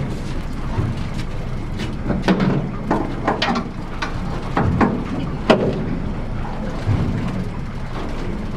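Fishing boat's engine running steadily under wind and water noise, with a scattering of sharp knocks through it.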